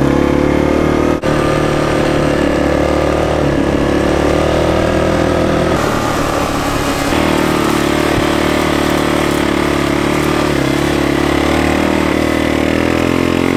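Four-wheeler (ATV) engine running steadily at an even pace, with a slight change in tone about halfway through.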